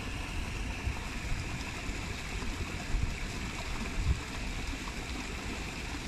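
Steady rush of falling, splashing water, like a small waterfall or stream, with a couple of low thumps about three and four seconds in.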